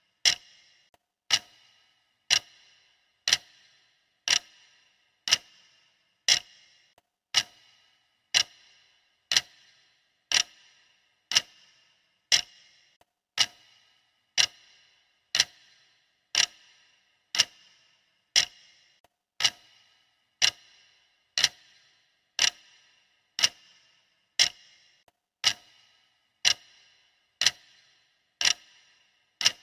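Clock ticking steadily at one sharp tick a second, each tick with a brief metallic ring.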